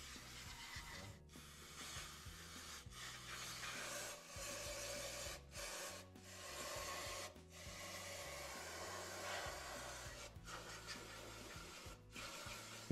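Faint scrubbing and rubbing on metal transmission parts as they are cleaned of metal shavings, in stretches broken by brief pauses, over quiet background music.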